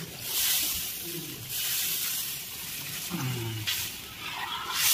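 Water poured from a pot into a simmering curry in a cast-iron wok, splashing and hissing in a few surges about a second long each.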